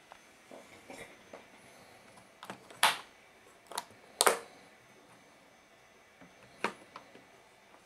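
Hands working the catches and lid of a portable record player's case: a few sharp clicks and knocks, the loudest about three and four seconds in.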